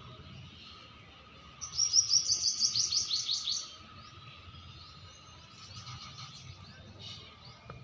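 Small bird chirping: a loud, quick run of high, falling notes, about six a second, lasting about two seconds, followed by fainter scattered chirps.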